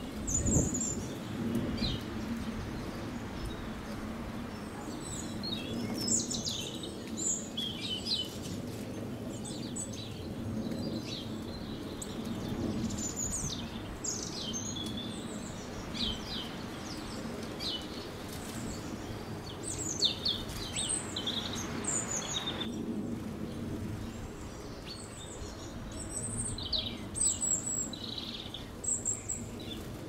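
Small garden birds chirping and calling: many short high chirps, scattered irregularly throughout, over a steady low background hum.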